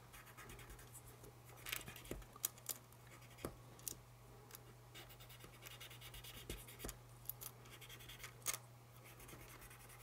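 Faint scratching and light clicks of a cotton swab rubbing graphite powder into the inside of a small model steel coil, over a steady low hum.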